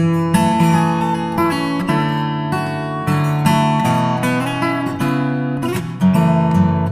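Instrumental acoustic guitar music, with a steady run of plucked notes and chords.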